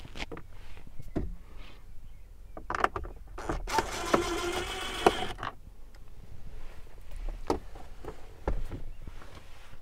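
Hands-on trim work on a pickup's plastic steering-column and dash trim: scattered clicks and knocks of tools, small screws and plastic pieces. About four seconds in there is a buzzing creak lasting nearly two seconds.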